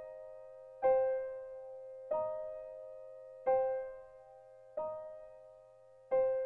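Background music: a slow keyboard melody of single notes, one struck about every 1.3 seconds and left to ring and fade, alternating between two pitches.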